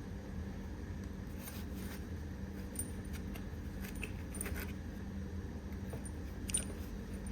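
A few scattered light clicks and clinks of small hard objects being handled, the sharpest one about six and a half seconds in, over a steady low hum.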